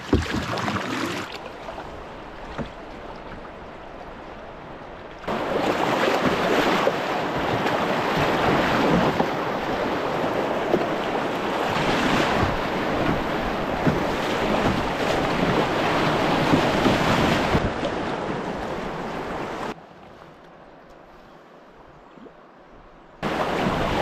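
Rushing river water in rapids with wind on the microphone, a steady hiss. It jumps louder about five seconds in, drops suddenly to a quieter rush near the end and comes back up just before it ends.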